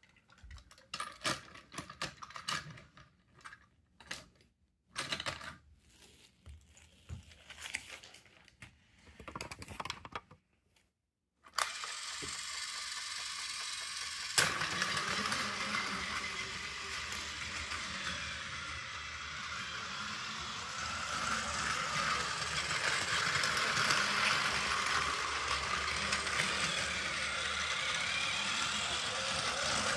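Hard plastic toy train cars clicking and knocking as they are handled. A little before halfway a Plarail Keihan 10000 series battery-powered motor car starts a steady whirring rattle, louder after a click, as it runs on plastic track.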